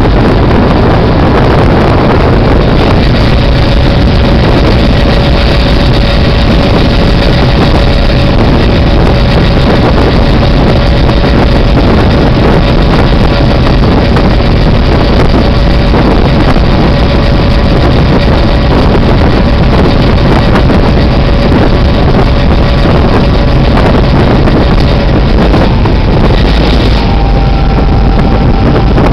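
Diesel locomotive running along the track, heard from its outside walkway: steady engine and rolling noise with heavy wind buffeting on the microphone. A steady whine runs through most of it, giving way to a higher pair of tones near the end.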